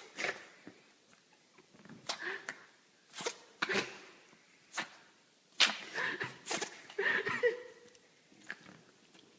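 An animal sneezing over and over: about a dozen short, sharp sneezes, irregularly spaced.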